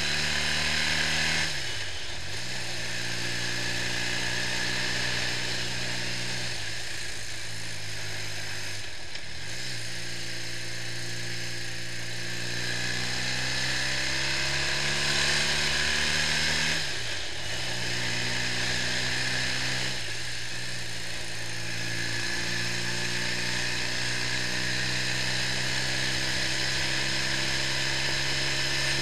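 BMW R65's air-cooled flat-twin engine running under way on the road, its pitch dipping briefly and recovering about two seconds in and again near nine, seventeen and twenty seconds. A steady high hiss runs under it.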